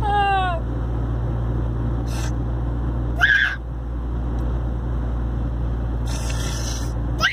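Steady low road and engine rumble inside a moving car, with a short high squeak falling in pitch at the very start and another brief high squeak about three seconds in.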